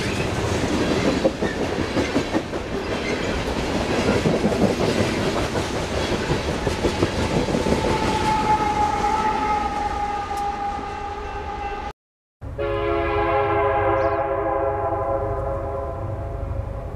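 Loaded coal train hopper cars rolling past with loud, steady wheel-on-rail noise and clatter, a high steady tone coming in over the last few seconds. After a sudden cut, a multi-note locomotive horn sounds steadily as a held chord.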